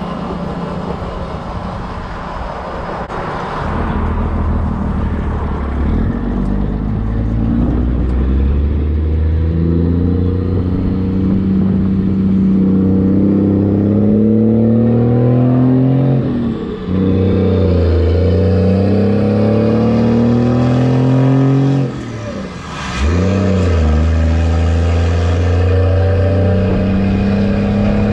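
1996 Cummins 5.9 12-valve inline-six diesel, running on waste motor oil, accelerating under load with a heavy trailer. Its pitch climbs steadily, then drops out briefly twice for gear changes. The second shift carries a sharp pop before the engine pulls again.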